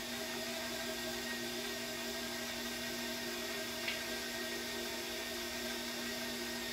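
Electric stand mixer running steadily on low speed, its motor humming as the paddle beats cheesecake batter, with a faint tick about four seconds in.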